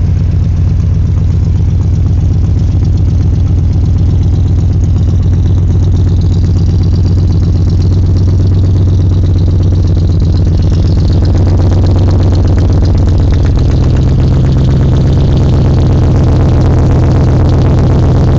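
An older car's engine idling steadily, its exhaust heard close to the tailpipe and underbody as a deep, even rumble. About two-thirds of the way through it gets a little louder and slightly higher in pitch.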